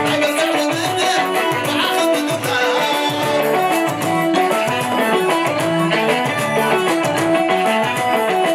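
Eritrean wedding dance music, an instrumental stretch led by a quick, stepping plucked-string melody over a bass line.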